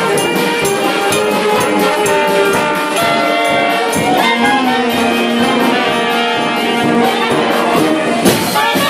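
Live swing big band, brass section of trumpets and trombones with reeds and drums, playing held horn chords over a steady, evenly spaced beat. A loud hit from the whole band lands near the end.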